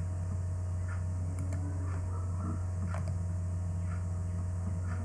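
Steady low electrical hum with a faint higher steady tone, and a few faint clicks of a computer mouse.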